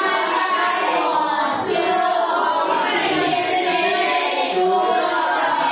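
Many children's voices together in unison, a sustained sing-song chant with long held notes.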